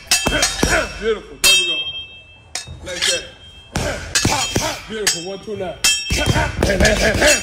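Boxing gloves striking padded focus mitts in a run of sharp punches, some in quick pairs, with short voice calls between the strikes.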